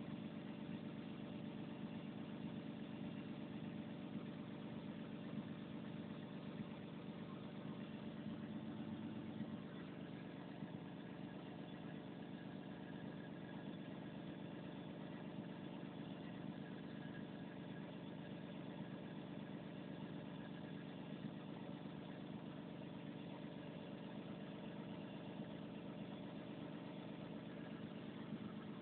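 Volvo 360 excavator's diesel engine running steadily at idle, an even hum with no change in speed. About ten seconds in, the sound shifts slightly and a faint higher whine comes in.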